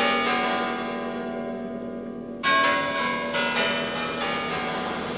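Bells ringing: a few struck tones fading away, then a fresh set of strikes about two and a half seconds in.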